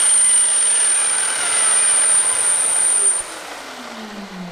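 A mitre saw's motor and an Aldi Workzone 1500 W wet and dry vacuum, switched on through its auto-start socket, running together loudly with a high whine. About three seconds in the saw's trigger is released: the whine stops and the saw's motor winds down with a falling hum, while the vacuum keeps running on its auto-start run-on delay.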